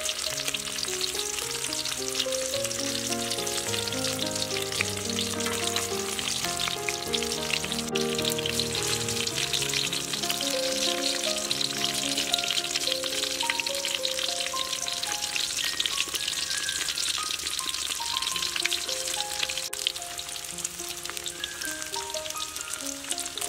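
Meatballs frying in hot oil in a wok: a steady, dense crackling sizzle. Soft background music with a simple melody plays over it.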